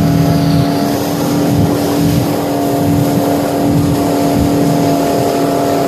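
Motorboat engine running steadily at speed while towing tubes, with a constant droning tone over the rush of its churning wake.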